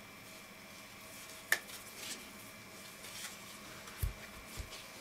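A bare 3.5-inch hard drive handled in gloved hands, with faint rubbing and small taps and a sharp click about a second and a half in. Near the end come two low thumps as the drive is set down flat on the table.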